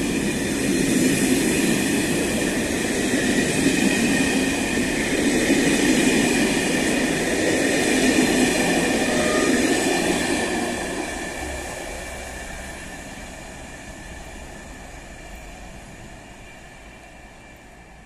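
SNCB passenger train of M4 coaches rolling past close by, a steady rush and rumble of wheels on rail, then fading away from about ten seconds in as the last coach passes and the train pulls off down the line.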